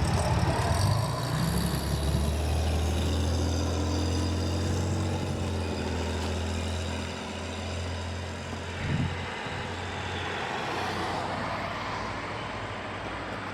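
1963 Chevrolet Corvair's 145 cubic inch air-cooled, horizontally opposed six-cylinder engine running steadily, a little louder during the first second or so.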